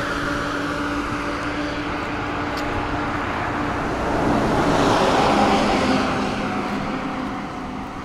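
Road traffic going by on a city street, cars and a bus among it, with a steady engine hum. One vehicle passes close, loudest about four to six seconds in, then fades.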